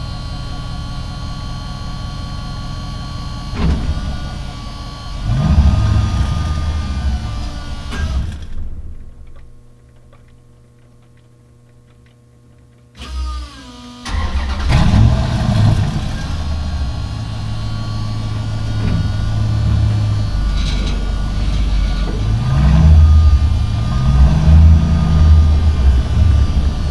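Semi truck diesel engine running loud, surging up a few seconds in. It drops to a faint steady hum for several seconds about a third of the way through, then comes back with a short falling whine and starts up loud again, revving with rising and falling pitch near the end.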